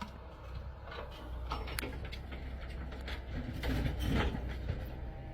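Excavator working some way off: a steady low engine rumble with scattered clicks and knocks of the bucket and rock, busier a little past the middle.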